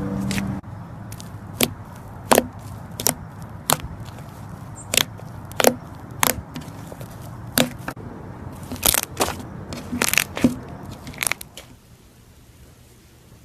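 Slime being squeezed and worked, giving a run of sharp, irregular clicking pops as trapped air pockets burst: some fifteen of them, stopping near the end.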